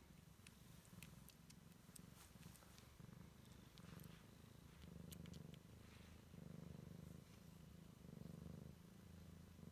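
A Siamese cat purring softly, the purr swelling and fading with each breath and growing stronger about halfway through, with a few faint ticks.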